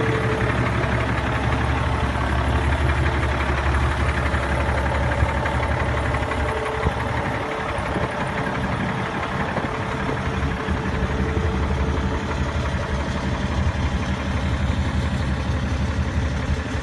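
International LoneStar semi truck's diesel engine running steadily, with an even low drone that holds without revving or engine-brake bursts.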